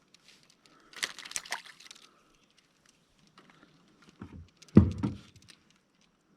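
Handling noises in a small boat: a short clatter of clicks and rattles about a second in, then a low knock followed by a heavier thump against the boat near the end.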